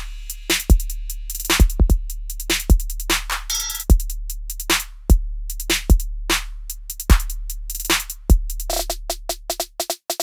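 Electronic beat music: drum-machine kicks about once a second with quick hi-hat-like clicks between them over a steady deep bass. Near the end a quick run of repeated pitched notes comes in, then the beat cuts out briefly.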